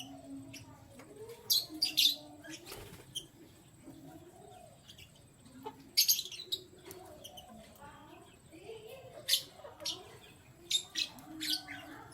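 Canaries chirping: short, sharp high calls in clusters, loudest about two seconds in and about six seconds in, with a lower wavering sound underneath.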